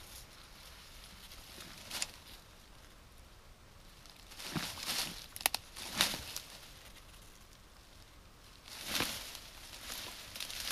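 Faint rustling and crunching steps through dry grass and brush, a handful of separate steps with two sharp clicks close together about halfway through.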